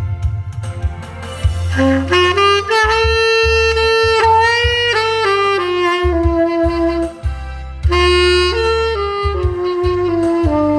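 Saxophone playing a slow melody over a backing track. It comes in about two seconds in, with long held notes that step and bend between pitches.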